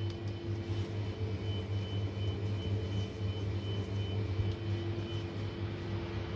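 Steady machine hum: a constant low drone with a steady higher tone over it, unchanging throughout.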